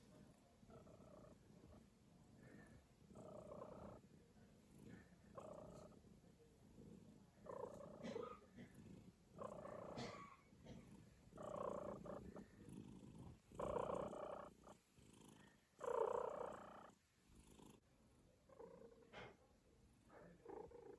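A cat purring, in a slow rhythm that swells roughly every two seconds with each breath, loudest about three quarters of the way through.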